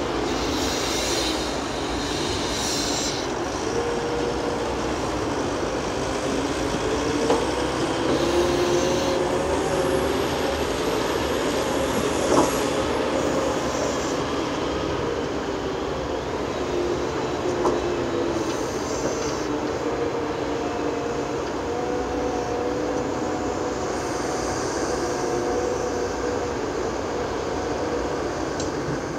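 Fendt 822 Vario tractor pulling a loaded dump trailer, its diesel engine running steadily under load with a whine whose pitch drifts up and down. A few single sharp clanks come through, the loudest about twelve seconds in.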